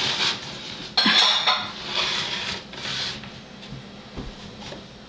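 Puzzle pieces knocking, clicking and scraping against the puzzle board as a toddler tries to turn a piece into its slot, with the sharpest knock about a second in.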